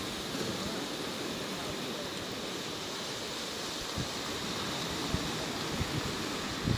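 Steady rush of surf breaking on the beach, mixed with wind. A few brief low thumps come in the second half.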